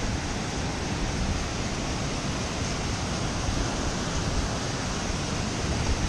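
Steady rushing of a mountain river and small waterfall spilling over boulders, with a low rumble underneath.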